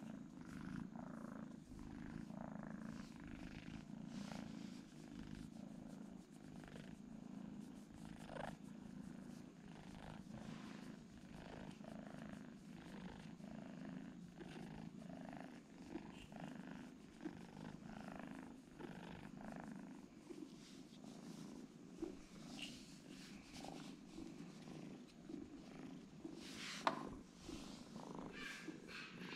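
Kitten purring steadily while being stroked under the chin, with a sharp click near the end.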